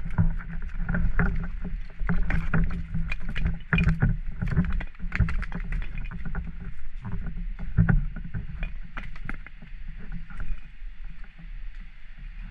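Close handling noise from a body-worn GoPro as a spearfisher walks down steps carrying a speargun and float: footsteps and gear knocking and rustling, heard as irregular sharp knocks over uneven low thuds.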